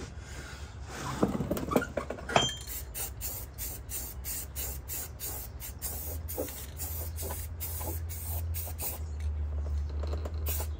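Hand tools working on the truck's front suspension: a few knocks and a short squeak, then an even run of short rasping strokes, about three a second, over a steady low hum.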